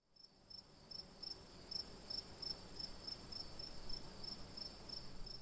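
Crickets chirping faintly, about three chirps a second, over a steady high trill and a faint low rumble.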